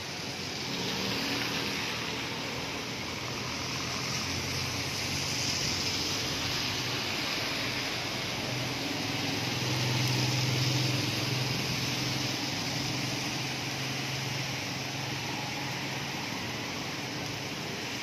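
Steady rain on a wet city street, with cars passing and their tyres hissing through the water on the road. A passing car's engine hum swells about halfway through.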